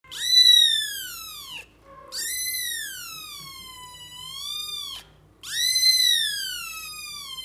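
Kitten meowing three times: long, high meows, each sliding up and then slowly falling in pitch.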